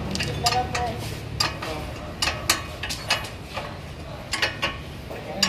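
Hand wrench working a nut on a car's front suspension arm: a string of sharp metallic clinks and clicks at irregular intervals as the wrench is swung and reset on the nut.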